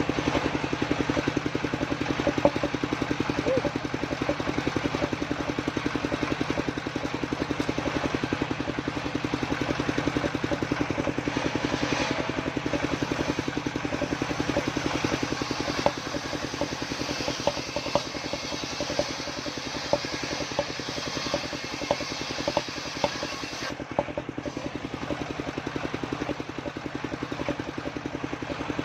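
Engine of a homemade circular saw rig running steadily with a fast even firing pulse, with a few sharp knocks along the way.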